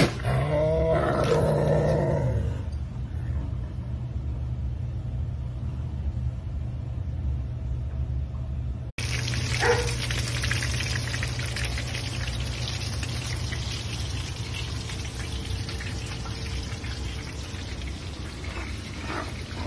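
A Savannah cat growls over a raw chicken, a drawn-out growl lasting about two seconds, over a steady low hum. After a cut about nine seconds in, chicken frying in shallow oil in a pan gives a steady sizzle.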